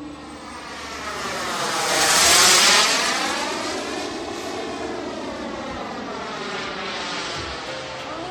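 Aermacchi MB-339 jet trainer's turbojet passing by: a jet rush that swells to its loudest about two and a half seconds in, with a sweeping, swirling hiss as it passes, then eases to a steady rush.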